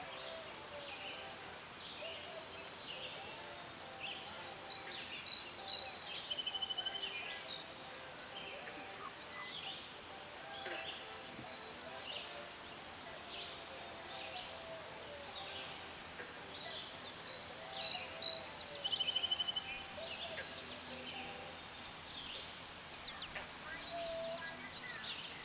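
Songbirds chirping and singing, with a louder song phrase that ends in a rapid trill, heard twice, about 5 s and 17 s in.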